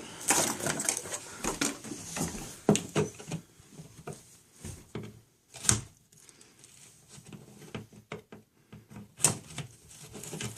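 Irregular clicking, scraping and knocking of hand work at a wall with a screwdriver, with a few sharper clicks about halfway through and near the end.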